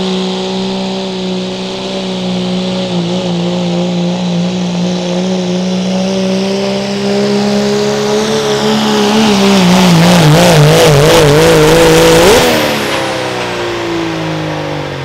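A pulling diesel pickup's engine at full throttle, holding a steady high-revving drone as it pulls the sled. About nine seconds in its pitch dips and wavers as the engine is pulled down under the load, at its loudest. About twelve seconds in the throttle is let off and the engine drops away.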